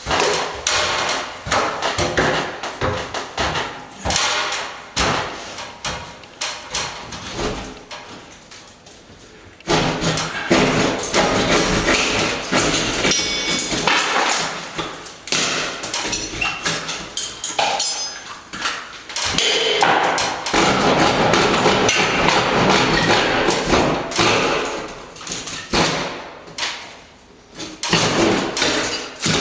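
Hand-held electrician's saw cutting through the timber laths of a lath-and-plaster ceiling, in rough stroke after stroke with repeated knocks and thuds.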